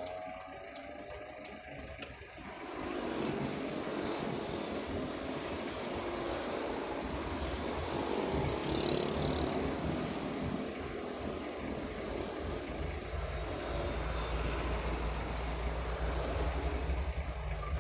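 Low, steady engine hum of a stopped vehicle idling in traffic, with road noise from passing cars; the hum grows louder about seven seconds in.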